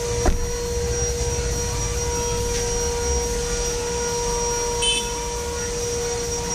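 Steady drone of a running electric-motor machine, a constant whine over a low rumble. A short knock comes just after the start, and a brief high squeak about five seconds in.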